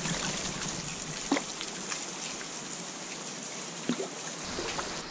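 Kayak paddle working river water: a steady wash of moving water with drips and small splashes off the paddle blade, two sharper drips about a second and a half in and near four seconds.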